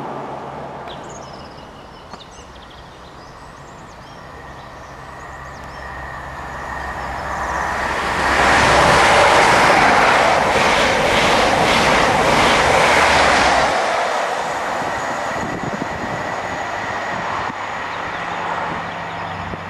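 Network Rail's yellow New Measurement Train, an HST, passing through the station at speed. A rush builds over several seconds into a loud wheel-and-rail roar with rapid wheel beats for about five seconds, then drops away to a fading rumble.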